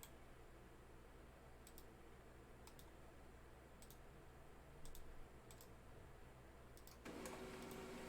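Near silence with faint, sharp clicks spaced roughly a second apart, and a soft rise in rustling noise near the end.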